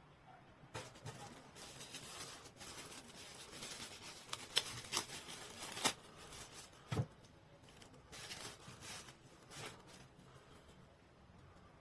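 Handling noises: rustling and scraping with several sharp clicks and knocks, the loudest around the middle.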